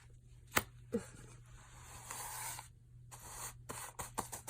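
Cash being handled for counting: soft rustling and scraping of paper bills with a few light clicks and taps, a cluster of them near the end.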